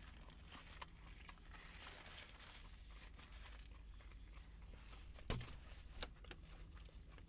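Faint sounds of eating a sandwich and handling its paper napkin: a few short sharp crinkles, the loudest about five seconds in, over a low steady hum.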